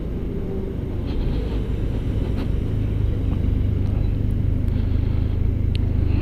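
Low, steady rumble of road traffic and wind on the microphone from a slow ride among cars, becoming louder and steadier about halfway through.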